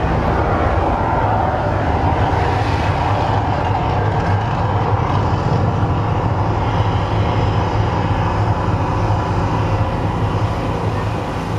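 Steady deep rumble of the Mirage volcano eruption show, with a roaring hiss on top.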